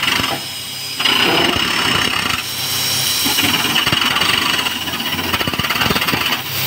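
Crawler-mounted rock drilling rig running loudly, its drill hammering into a stone face over a steady high hiss. The noise dips briefly just after the start and picks up again about a second in.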